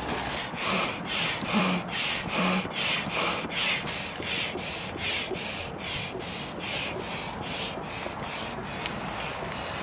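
Air pump worked in quick, even strokes, a rush of air at about three strokes a second, inflating the air beams of a Quechua Air Seconds tent.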